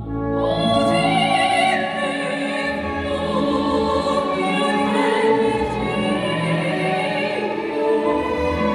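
Popera singing: a solo voice sings long, sustained operatic phrases with musical accompaniment, a new phrase starting just at the beginning after a brief lull.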